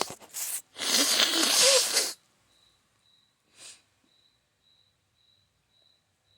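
A person blowing their nose: two short blasts, then one long blow lasting over a second, followed a moment later by a short sniff.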